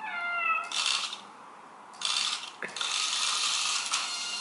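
Small geared motor of a remote-controlled toy snake whirring and clattering as the toy runs across a tile floor and into a rug, with a click a little before three seconds. A short falling tone sounds right at the start.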